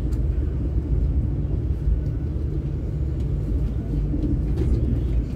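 Steady low rumble of a CRH high-speed train running along the track, heard from inside the passenger cabin, with a few faint clicks.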